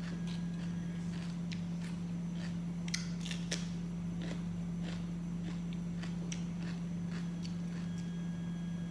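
Crisp snaps and crunches of raw green bell pepper being torn apart by hand and chewed, with two sharper snaps about three seconds in, over a steady low hum.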